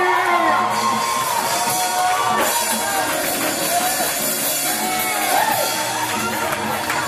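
Church praise music, with members of the congregation shouting and singing over it.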